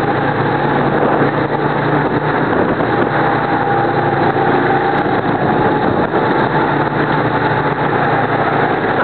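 Go-kart engines running steadily while under way, recorded on board a moving kart: a constant loud engine drone with a steady higher note over it.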